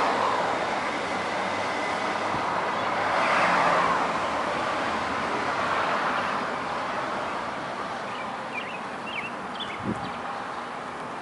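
Road traffic passing outdoors: a steady wash of vehicle noise that swells as a vehicle goes by a few seconds in, then eases off. Near the end come a few short high chirps and a single short thump.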